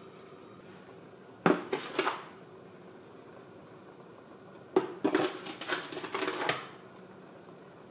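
Kitchenware clatter in two short bouts, a brief one about a second and a half in and a longer run of knocks and scrapes from about five seconds in. It is a measuring cup scooping sugar out of a plastic tub and emptying it into a stainless steel pot.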